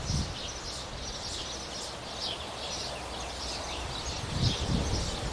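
Small birds chirping in the trees, short high notes repeating two or three times a second, with low rumbling bursts at the start and again about four and a half seconds in.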